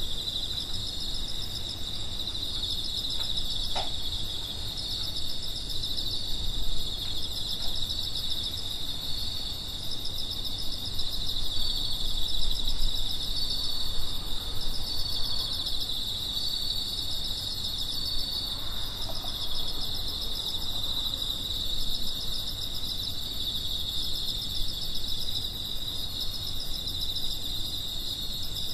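Autumn night chorus of singing insects such as crickets: a steady high trill with rhythmic pulsed chirping over it, and a brief soft click about four seconds in.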